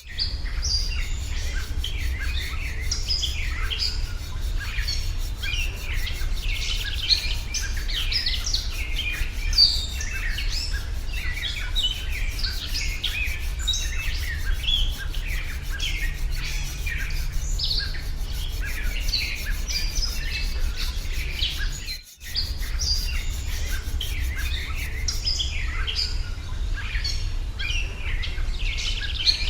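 A dense chorus of many small birds chirping and twittering, over a steady low rumble. All sound cuts out for a moment about two-thirds of the way through, then the chorus resumes.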